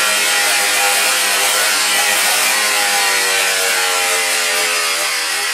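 Polaris 600 XLT three-cylinder two-stroke snowmobile engine running hard with no load on it (drive belt off the clutches). The revs sag slowly in the second half. The engine is deliberately overheated, its cylinder head at about 260–280°F.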